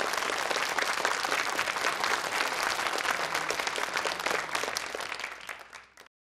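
Studio audience applauding, dying down toward the end and then cut off suddenly.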